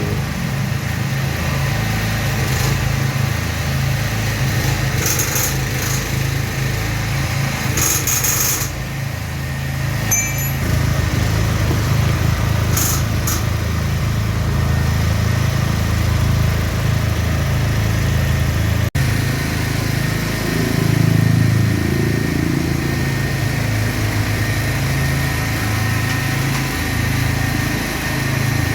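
A small engine running steadily under load, with a few brief high-pitched sounds about five, eight and thirteen seconds in.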